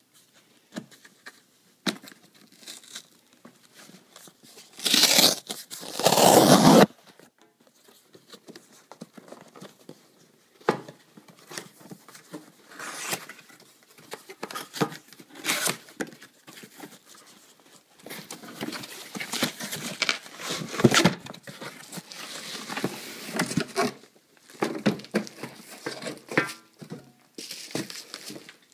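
A cardboard shipping box being opened and unpacked by hand: a loud tearing sound lasting about two seconds, about five seconds in, then on-and-off rustling and crinkling as the contents are handled and pulled out.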